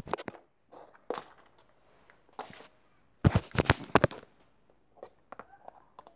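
Toy horse's hooves tapped on a wooden floor: a series of sharp clacks and knocks, the loudest cluster of several strikes about three seconds in, then a few lighter ticks.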